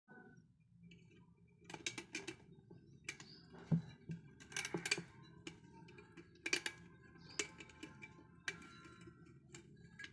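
Irregular light metallic clicks and knocks as a two-stroke motorcycle cylinder barrel is worked down by hand over its studs.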